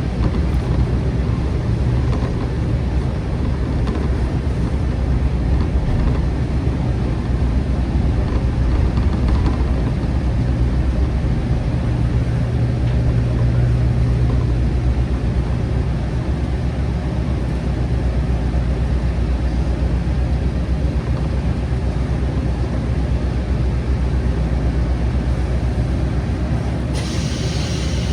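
JR Shikoku KiHa 40/47 diesel railcar under way, heard from inside the car: a steady low engine drone over the rumble of the running train. A higher hiss joins near the end.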